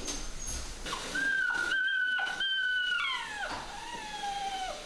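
Eight-week-old German Shepherd puppy whining: a long high whine held for about two seconds, then whines that slide down in pitch.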